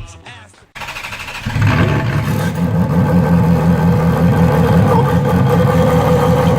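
Ferrari engine running: it comes in suddenly about a second in, steps up in level half a second later, then holds a steady, even note.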